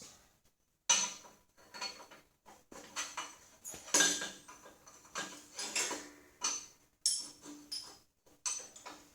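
Steel bar stock and metal parts clanking as they are handled and set up: a string of irregular sharp knocks, several with a short metallic ring, the loudest about a second in and again about four seconds in.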